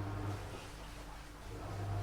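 Washing machine running: a steady low hum that swells and eases about every second and a half to two seconds as the drum turns.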